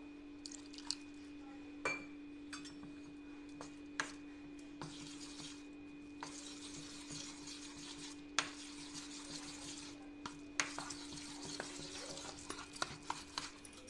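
Steel spoon stirring thick semolina batter in a steel bowl: soft scraping and squelching, with sharp clicks now and then as the spoon knocks the bowl's side, and busier stirring in the second half. A steady low hum runs underneath.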